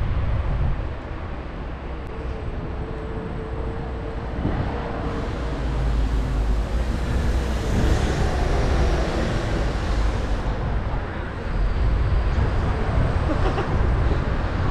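Wind buffeting the microphone while riding an electric scooter through city traffic, with a low rumble throughout. The street noise swells for a few seconds around the middle, as from a passing vehicle.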